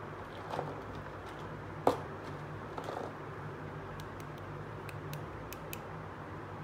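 Small plastic toy pieces clicking and tapping as they are handled, with one sharper knock about two seconds in and a run of light high ticks in the second half, over a steady low background hum.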